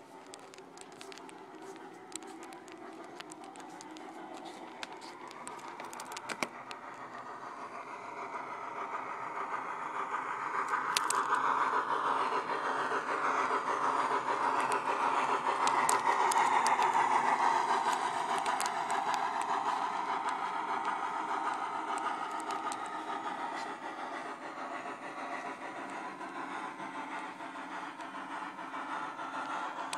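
Sound-equipped model B&O 0-10-0 steam locomotive running, the simulated steam locomotive sound from its TCS WOW Sound decoder playing through the model's onboard speaker. The sound swells to its loudest about halfway through as the engine passes close, then eases off. Sharp clicks are heard during the first few seconds.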